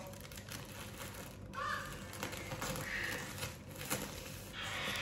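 Faint handling and rustling of a plastic-wrapped batik cloth being unpacked, with scattered small clicks. A short cry sounds about a second and a half in, and a fainter one near three seconds.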